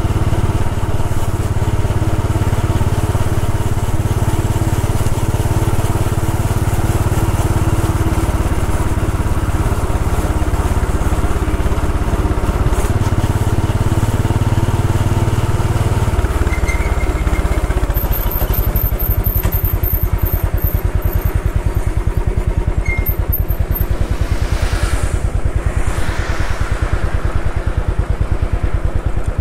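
Royal Enfield Bullet 500 EFI's single-cylinder engine running with its fast, steady thump. Its note shifts a little about halfway through.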